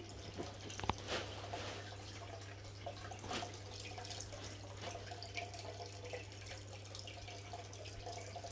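Faint handling sounds of scissors cutting yarn and the yarn being handled, with a sharp click about a second in, over a steady low hum.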